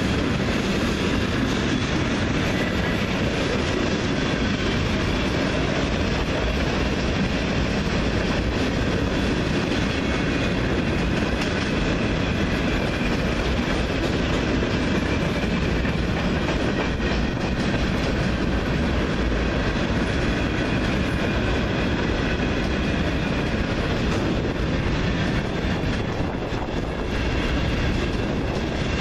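Freight train cars rolling steadily past, a continuous rumble with the clatter of steel wheels over the rail joints.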